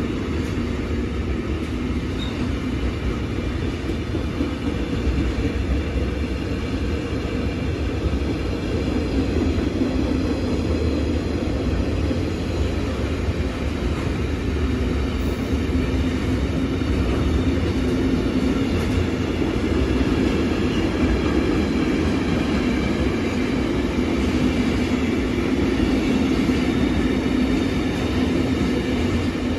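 Intermodal freight train's container wagons rolling past at speed: a steady rumble of wheels on the rails.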